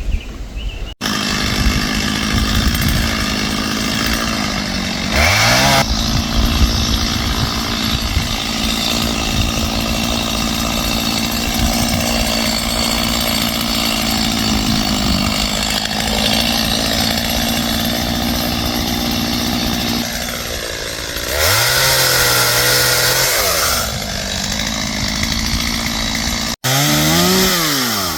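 Gas chainsaw engine running steadily, revved up briefly about five seconds in, held at high revs for a few seconds past the twenty-second mark, and revved again near the end. The sound jumps abruptly twice.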